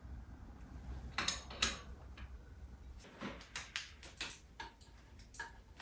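Light clicks and taps of hand tools and bicycle headset parts being handled: two sharp clicks about a second in, then a quick, irregular run of small clicks from about three seconds on.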